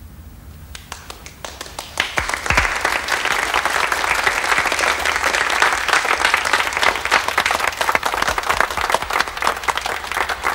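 Audience of schoolgirls and nuns applauding. A few scattered claps build within about two seconds into sustained applause.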